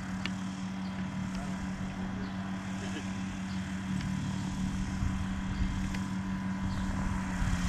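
Kolb ultralight aircraft's engine and pusher propeller running as a steady drone while it taxis across grass, getting a little louder over the last few seconds as it approaches.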